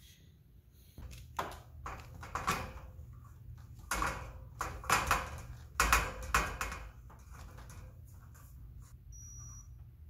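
A steel garage-door support brace being handled and set against the door panel: a run of irregular knocks, clanks and scrapes of metal on the door, loudest in the middle, then settling to a faint steady hum.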